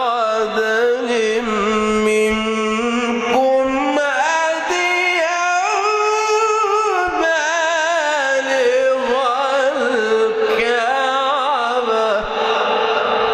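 A male Quran reciter chanting in a melodic style, holding long ornamented notes whose pitch wavers and glides.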